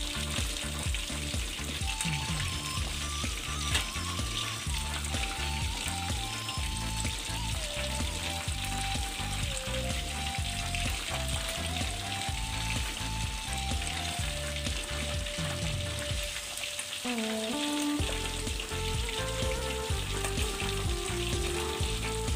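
Hot oil sizzling steadily around whole fish deep-frying in a wok, the fish being nudged with chopsticks. Background music with a melody and a bass beat plays over it, the beat dropping out briefly about three-quarters of the way through.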